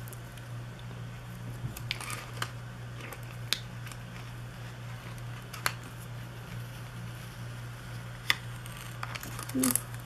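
Scattered soft clicks and paper rustles of glossy stickers being peeled off their sheet and pressed into a paper planner, over a steady low hum.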